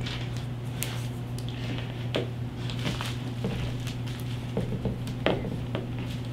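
Light handling noises, scattered soft rustles and a few small sharp clicks, as nylon pull string is worked through a cloth-wrapped motorcycle handlebar by hand, over a steady low hum.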